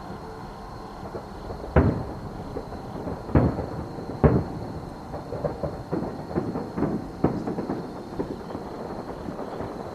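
Fireworks shells bursting in the distance: three heavy booms in the first half, then a run of smaller, quicker pops and crackles.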